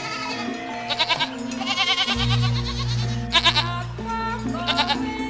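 Goats bleating several times in quavering, wavering calls, over background music.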